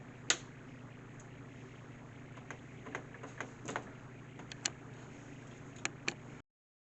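Scattered light clicks and taps of hands handling parts of a vending machine, about a dozen over several seconds, the sharpest just after the start, over a steady low hum.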